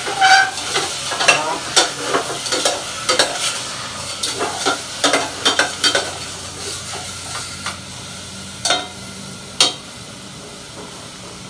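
Pork in a soy-garlic marinade frying and sizzling in a stainless steel pot, with a cooking utensil scraping and clinking against the pot as it is stirred to brown the meat. The stirring strokes come thick and fast at first, thin out after about seven seconds, and end with two last sharp knocks near the end.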